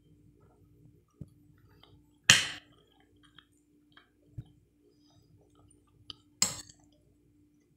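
Close-miked eating: soft chewing of chicken liver and mashed potato, with a few small clicks and two short, sharp clinks of a metal fork on a glass plate.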